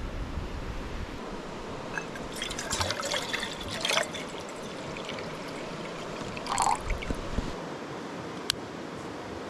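River water running steadily, with splashing and sloshing from about two seconds in and again near seven seconds as something is rinsed off in it. A single sharp click near the end.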